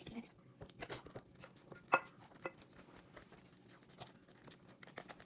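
Utensil stirring muffin batter in a bowl: faint, irregular clicks and taps against the bowl, one sharper knock about two seconds in.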